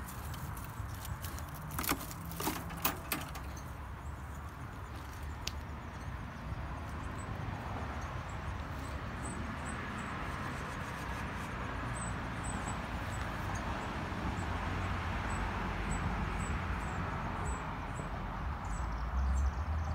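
Outdoor ambience of steady distant road traffic that slowly swells, with a few sharp clicks about two to three seconds in and faint high ticks repeating in the second half.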